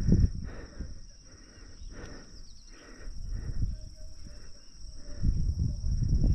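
Steady high insect trilling over low rumbling that is loudest at the start and again from about five seconds in, with a few faint short calls in the quieter middle.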